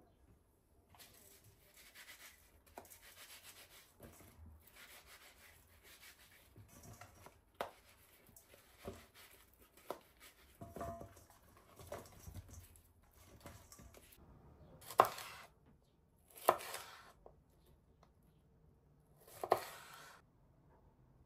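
Quiet rustling and light knocks as zucchini halves are handled in a stainless steel bowl. Near the end a kitchen knife slices red bell pepper on a wooden cutting board in three crisp, louder cuts.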